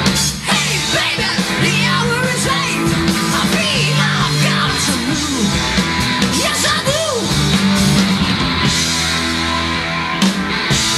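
Hard rock band playing live: electric guitar with bending, wavering lead lines over bass and drums with cymbal crashes.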